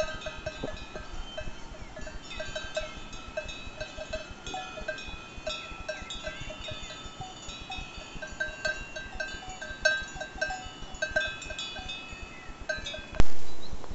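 Cowbells on a grazing herd of cattle clanking irregularly, several bells ringing over one another. A sharp knock near the end.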